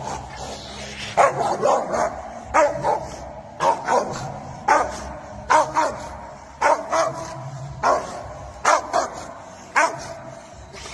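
Rottweiler barking repeatedly and aggressively, the barks often coming in quick pairs, about one pair a second.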